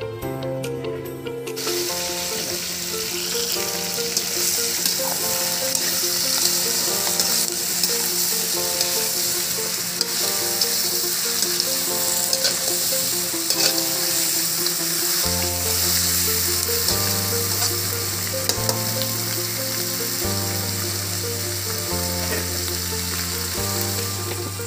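Pieces of fish head frying with onion and green chilli in a wok, a steady loud sizzle that starts about a second and a half in, with a few small scrapes of stirring. Background music with held notes and a bass line plays under it.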